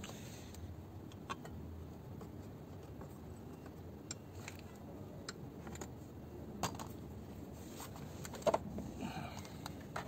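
Scattered light clicks and taps as a metal car-seat height-adjuster mechanism and seat parts are handled, over a faint steady background noise.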